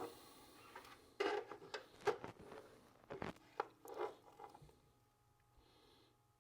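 Handling noises: a quick run of sharp clicks and knocks for about three and a half seconds, then quiet.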